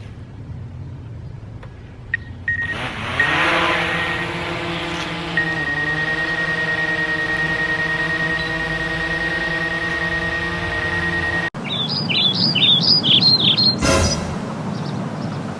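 DJI Mavic Pro Platinum quadcopter's motors spinning up about two and a half seconds in, then running at a steady hum with a thin high whine on top. The sound cuts off suddenly about three-quarters of the way through. A burst of quick rising chirps and two short knocks follow near the end.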